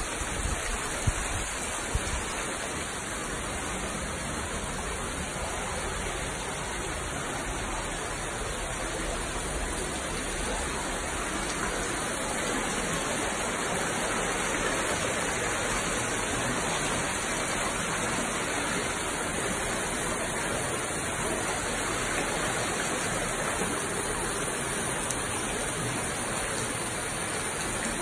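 Steady rushing hiss of heavy rain and flowing floodwater, with a few brief knocks in the first two seconds.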